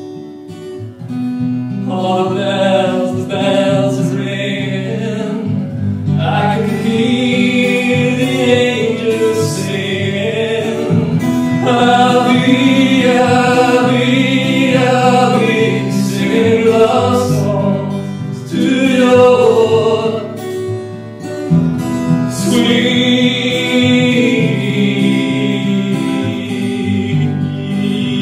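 Live music: a singer sings phrases over acoustic guitar accompaniment, the voice coming in about two seconds in.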